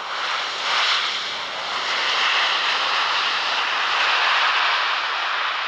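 Four-engine Airbus A340 rolling out after landing, its jet engines in reverse thrust: a loud, steady jet roar that swells within the first second.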